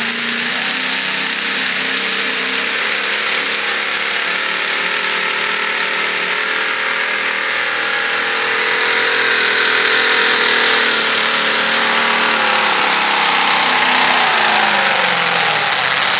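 A modified pulling tractor's V8 engine running hard at high revs through open vertical exhaust pipes as it pulls down the track. Its pitch holds nearly steady and it grows steadily louder, with a brief dip in revs near the end.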